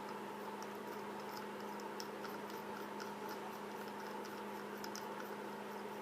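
Faint, irregular light ticks and clicks of the small metal switch parts of a mechanical e-cig mod being unscrewed and handled by hand, over a steady hum.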